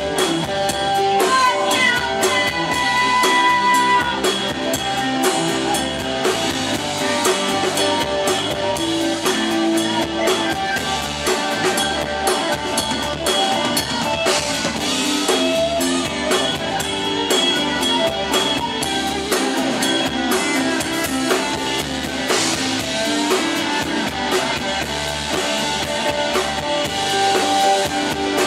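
Live rock band playing: drum kit keeping a steady beat under electric guitar.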